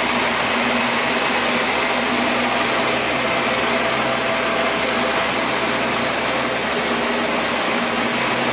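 Monarch 10EE lathe running at its top spindle speed of 4,000 RPM: a steady mechanical whir with a few steady tones, holding an even pitch and level.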